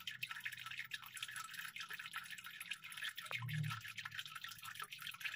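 Faint crackling made of many small clicks, over a low hum that swells briefly about three and a half seconds in.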